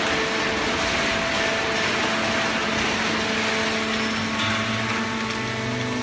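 Fully automatic horizontal cardboard baler running: a steady mechanical noise with several hum tones on top, from its hydraulic power unit and motors. A deeper hum comes in about four and a half seconds in.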